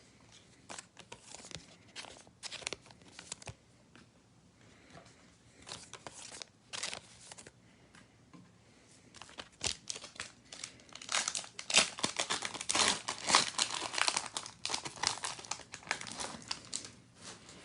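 A trading card pack wrapper being torn open and crumpled by hand: a few scattered crinkles, then a dense run of crackling about ten seconds in as the wrapper is pulled apart.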